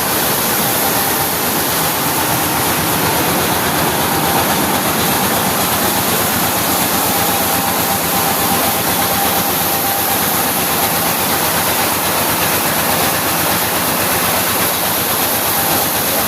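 Vintage rice milling machine running steadily: a loud, even mechanical noise with a faint steady whine and a fast low pulsing.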